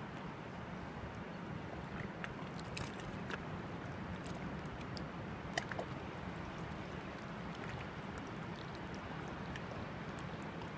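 Steady rushing of river water, with a few light clicks, the sharpest about halfway through.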